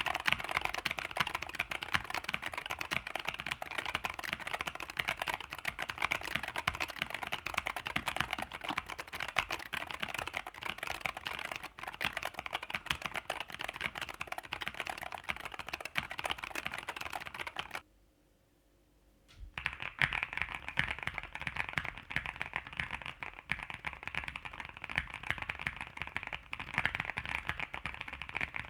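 Fast typing on a low-profile mechanical keyboard: a dense, continuous stream of key clicks. It stops for about two seconds a little past halfway, then starts again.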